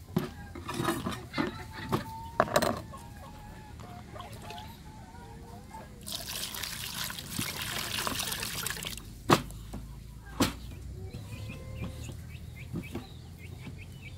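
Water sloshing and splashing in a plastic basin as a fish and a cleaver are rubbed and washed in it, busiest for a few seconds around the middle, with two sharp knocks about a second apart after it. Hens cluck in the background.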